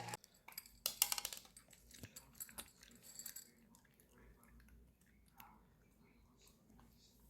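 Faint scattered clicks and clinks of small hard objects, with a quick run of them about a second in.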